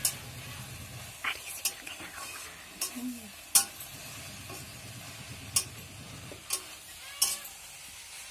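Leafy greens sizzling in a metal kadai while a long-handled steel spatula stirs them, its strokes scraping and clinking against the pan about eight times, the loudest about three and a half seconds in.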